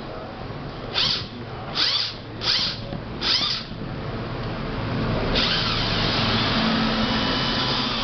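Cordless drill-driver buzzing in four short trigger pulls against a stubborn factory-tightened screw in a fan's motor housing. From about five seconds in it runs steadily, as the screw breaks free and backs out.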